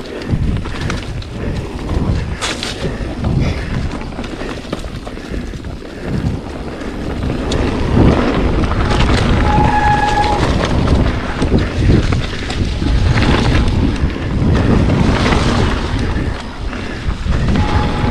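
Wind rushing over the camera microphone and the rumble and rattle of a mountain bike descending a dirt trail, with knocks as it hits bumps. It gets louder from about six seconds in, and there is a short squeal about ten seconds in.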